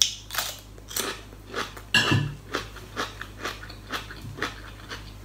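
Crunching and chewing of raw cucumber: a steady run of crisp crunches, about three a second.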